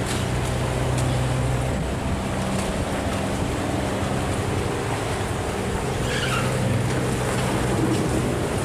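A barge's diesel engine running steadily with a low hum, over the rush of water along the hull.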